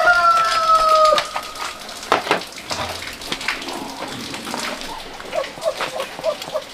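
The end of a rooster's crow: one long call with a slightly falling pitch that stops about a second in. Scattered knocks and water-like splashing follow, with a run of short, low calls near the end.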